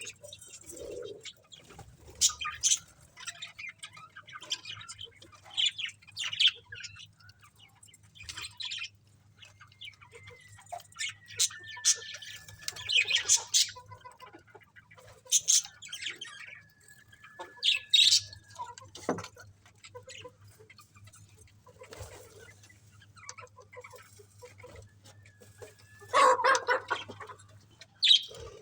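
Pet budgerigars chirping and chattering in short, scattered bursts, with a thin drawn-out whistle in the middle and a faint steady low hum underneath.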